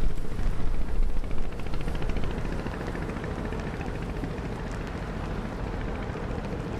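Strong wind buffeting the microphone, a low rumbling noise that gusts hard for the first two seconds or so and then settles to a steadier rush, with a faint steady drone underneath.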